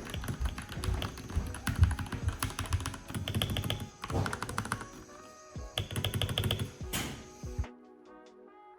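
Fast typing on a Royal Kludge RK84 mechanical keyboard with yellow switches: dense runs of keystroke clacks in bursts, stopping shortly before the end, with background music under it.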